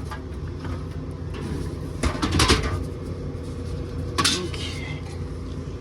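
Aluminium soda cans knocking and clanking as they are loaded into a drink vending machine: a quick cluster of knocks about two seconds in and a single knock about four seconds in.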